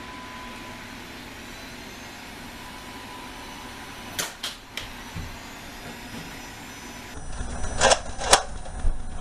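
Steady background hiss with a few faint clicks about four seconds in. Near the end the background changes abruptly and sharp clacks of Nerf blasters follow, two of them about half a second apart.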